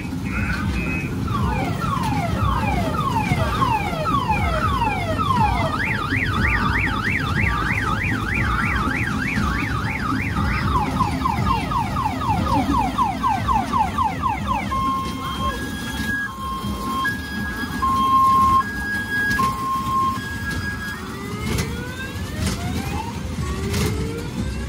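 Electronic car-alarm-style siren sound effect played through a kiddie ride's loudspeaker, cycling through modes: repeated falling whoops about two a second, then faster warbling sweeps, then a slow two-tone hi-lo beep, and rising glides near the end. A steady low rumble runs underneath.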